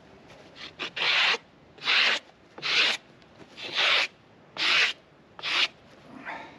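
Brush or broom sweeping sawdust off a freshly sawn chestnut slab, seven quick scratchy strokes about one a second.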